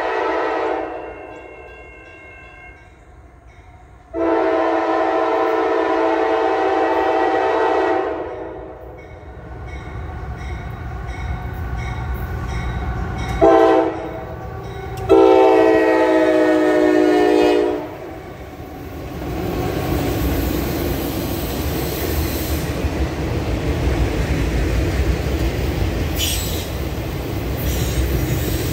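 Norfolk Southern diesel freight locomotive's air horn sounding the grade-crossing signal as the train approaches: the tail of one long blast, then a long blast, a short one and a final long one. The locomotive then passes with a low engine rumble, and the steady rolling clatter of autorack cars going by follows.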